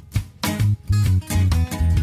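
Background music: guitar with a bass beat.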